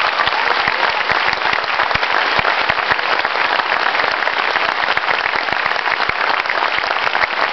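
Audience applauding, many people clapping steadily.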